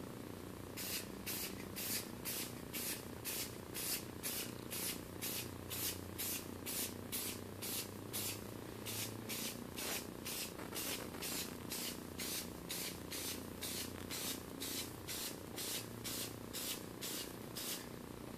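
Aerosol spray-paint can fired in short, rapid bursts, about two to three hisses a second, as a light first coat goes on. The can has a round-pattern nozzle rather than a fan nozzle.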